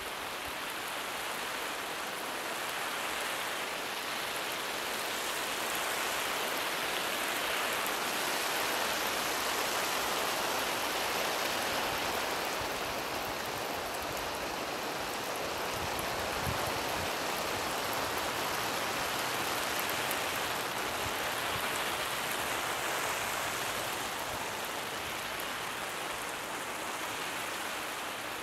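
Lawn sprinkler spraying water, a steady hiss of falling droplets. It grows louder over the first ten seconds or so, then slowly fades again.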